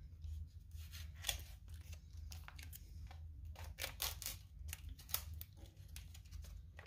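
MRE entrée retort pouch being slit open with an M4 bayonet blade and pulled apart: a run of short scraping, tearing and crinkling sounds from the foil-laminate pouch, over a low steady hum.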